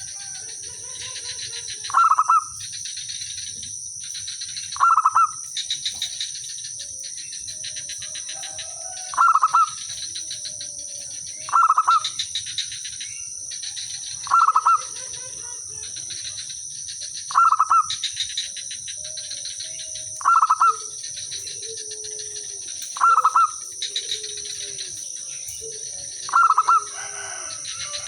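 Zebra dove (perkutut) singing its cooing song, a short loud phrase of a few quick notes repeated about every three seconds, with fainter lower calls between the phrases. A steady high insect drone runs underneath.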